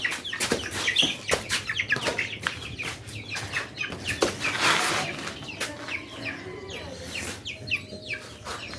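Chickens clucking and chicks peeping, a quick run of short falling calls, with scuffling and a burst of wing flapping about halfway through as the birds are chased to be caught.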